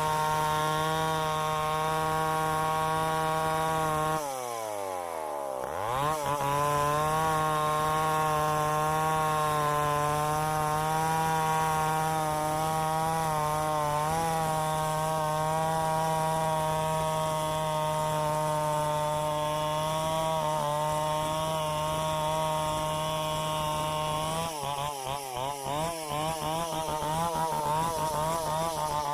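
Tecomec two-stroke chainsaw running at high revs while milling a gmelina log lengthwise. Its engine note drops sharply about four seconds in and climbs back, then holds steady, and wavers up and down near the end.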